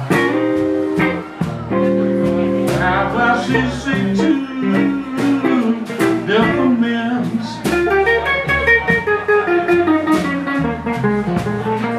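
Live electric blues band playing: electric guitar over upright double bass and a drum kit.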